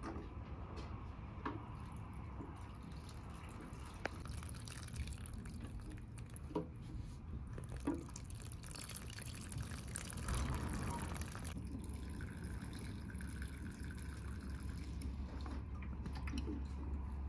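Water dripping in scattered single drops, with a few seconds of denser running water about halfway through.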